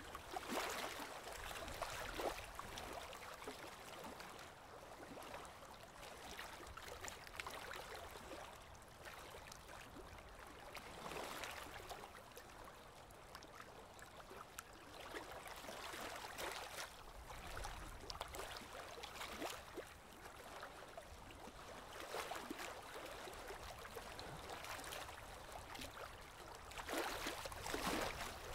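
Faint bubbling and trickling of aquarium water, steady with many small ticks, swelling and easing every few seconds.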